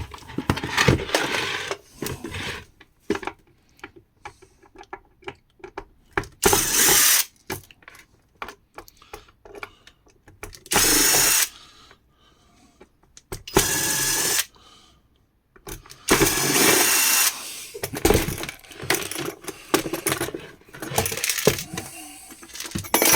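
A power drill-driver runs in four short bursts of about a second each, with clicks and knocks of parts being handled between them.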